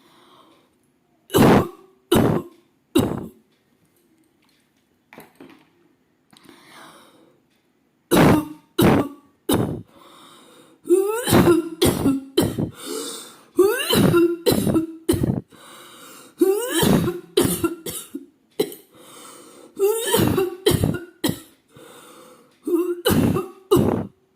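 A woman coughing deliberately for a coughing challenge. Three sharp coughs come near the start, then a lull with faint breaths. From about a third of the way in, a long run of coughs follows in quick clusters of two or three, with short breaths between.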